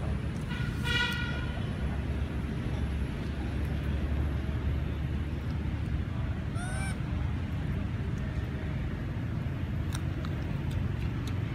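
Steady low rumble of road traffic, with a short tooting horn-like tone about a second in and a brief high chirp near seven seconds.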